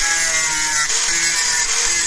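Angle grinder with an abrasive disc grinding the rusty steel edge of an axe head: a steady high grinding hiss, mixed with background music whose notes change every fraction of a second.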